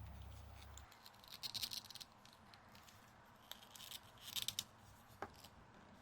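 Faint handling noise of a plastic action figure being posed: soft rustles and rubbing with a few small clicks from its joints, the sharpest click about five seconds in.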